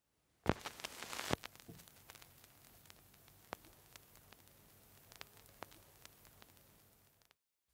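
Faint manual typewriter sounds: a brief rustle and rattle of paper being rolled into the platen, then a few sparse, irregular key clicks over a low hiss.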